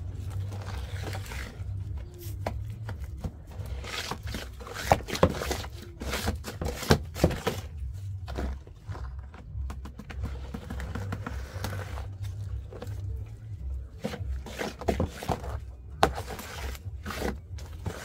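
A flat wooden stick stirring thick detergent paste in a plastic basin, with irregular scrapes and knocks against the basin's sides and bottom.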